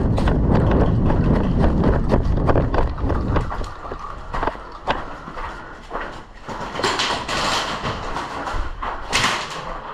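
A person running in footsteps, with wind and gear rubbing on the microphone, for about the first three seconds. Then the running stops, leaving scattered knocks and rustles of handled gear.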